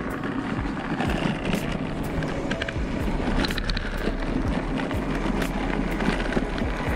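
OPEN U.P. gravel bike rolling fast down a packed-snow track: steady tyre and wind noise rumbling on the microphone, with many small clicks and rattles from the bike.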